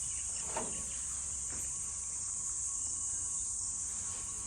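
Steady, high-pitched chirring of a cricket chorus that does not let up, with a few faint light knocks.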